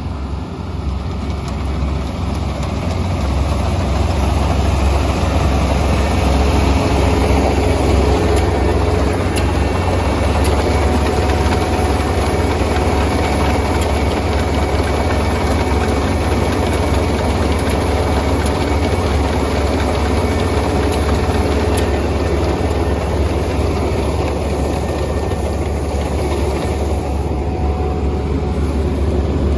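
Kubota ER470 combine harvester's diesel engine running steadily with a deep hum, growing louder over the first few seconds and then holding steady.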